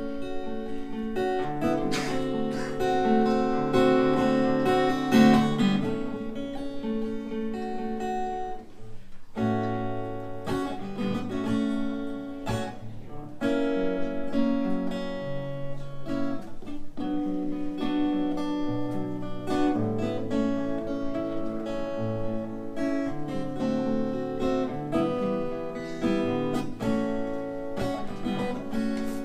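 Acoustic guitar playing a run of chords that change every second or two: the instrumental opening of a song.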